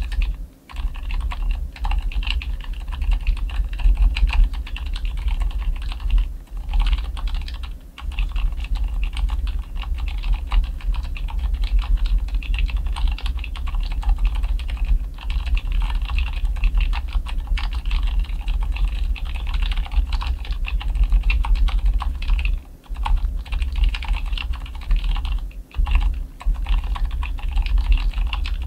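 Fast, continuous typing on a Cherry MX Board 3.0S mechanical keyboard with Cherry MX Silent Red switches. The keystrokes are muffled and soft, with an occasional scratchy sound and no stabilizer-wire rattle or spring ping. The typing pauses briefly a few times.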